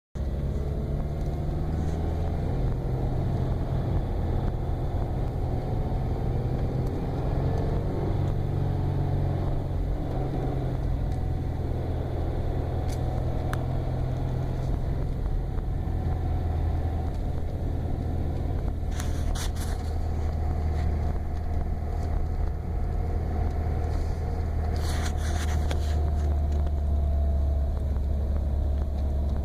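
2015 Subaru WRX's turbocharged FA20 flat-four engine running in gear under light throttle, a steady low drone with a couple of brief bursts of higher, scratchy noise past the middle. The owner is chasing a high-pitched rasping noise when feathering the throttle in first and second gear, which the dealer found no fault behind.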